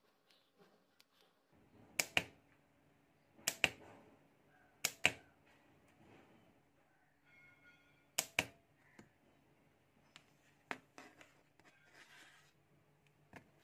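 Four sharp double clicks a second or more apart, then a few fainter ones: the motorcycle starter relay of a homemade capacitor spot welder snapping on and off as the welding pen's push button is pressed briefly.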